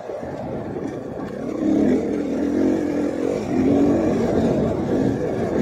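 Single-cylinder four-stroke engine of a KTM 500 EXC enduro motorcycle running under load on the trail, its pitch rising and falling with the throttle, with two louder surges of revs in the middle.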